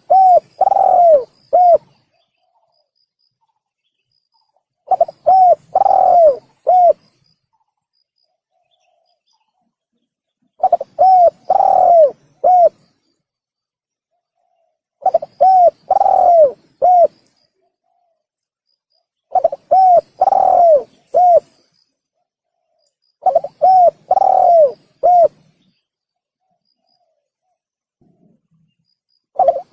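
Male spotted dove (tekukur) cooing: six phrases of several short coos each, every phrase about two seconds long and repeated every four to five seconds, with a seventh phrase starting at the very end and near silence between phrases.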